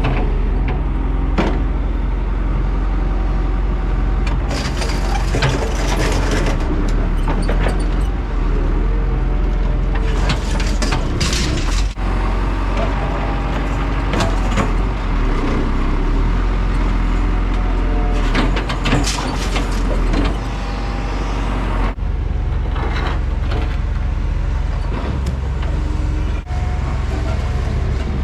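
Septic pump truck's diesel engine running steadily while it vacuums out a septic tank, with repeated bursts of rushing noise over the drone.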